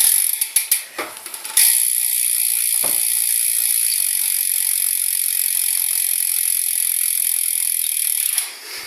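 BSD rear BMX hub freewheeling: a few separate ratchet clicks in the first second and a half, then a steady fast buzz of the pawls as the wheel spins freely, dying away about eight and a half seconds in.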